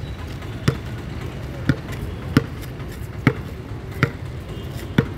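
Basketball dribbled on a hard outdoor court: six bounces, roughly one a second, each a sharp smack with a short ringing note. A steady low rumble runs underneath.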